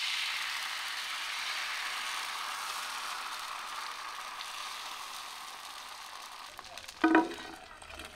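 Tavsole batter (soaked rice and cucumber) sizzling loudly as it hits a hot iron pan over a wood fire, the hiss slowly fading as it spreads and cooks. About seven seconds in, a steel plate is set over the pan as a lid with a ringing clank.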